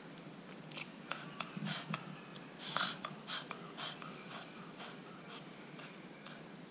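Faint snuffling breaths and mouth smacks from a Cavalier King Charles Spaniel: a scatter of short, soft sniffs and clicks over the first five seconds, then quieter.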